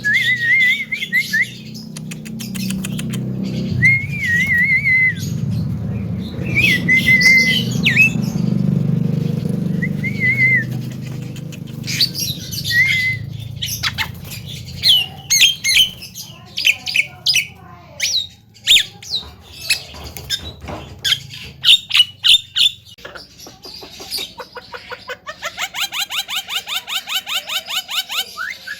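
Javan myna calling and mimicking: wavering whistled phrases over a low hum, then a stretch of harsh squawks and sharp clicks, ending in a fast run of evenly repeated ringing notes, about four or five a second.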